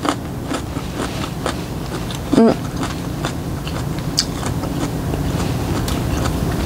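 Close-miked chewing of a mouthful of fresh green chili pepper, with crisp wet mouth clicks about twice a second. A brief hummed "mm" comes about two and a half seconds in, over a steady low hum.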